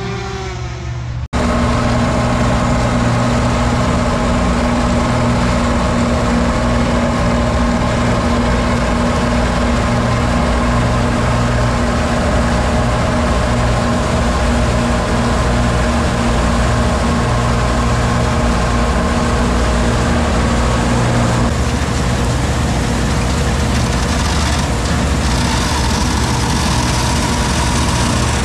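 Bizon combine harvester's diesel engine and threshing machinery running steadily under load while harvesting wheat, a constant drone with a steady hum. About a second in the sound cuts from one take to another, and one steady tone drops away about 21 seconds in.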